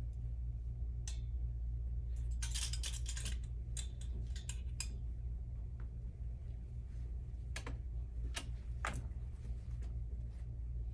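Clothes hangers clicking and scraping on a metal clothing rail as garments are pulled and handled. The clicks come in a quick run a couple of seconds in, with a few single clicks later, over a steady low hum.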